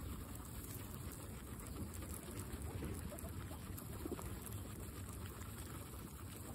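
Several guinea pigs munching fresh grass: a steady, dense crackle of many small chewing and nibbling sounds with blades rustling.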